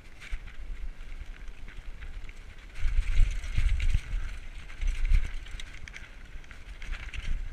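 Mountain bike rolling fast over a loose, rocky dirt trail: a steady hiss of tyres on gravel with frequent rattles and knocks from the bike over rocks. Wind buffets the microphone in heavy low rumbles, loudest about three seconds in and again around five seconds.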